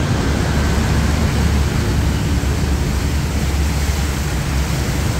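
Steady rush of wind over the microphone of a moving motorbike, with a heavy low rumble and road and engine noise underneath.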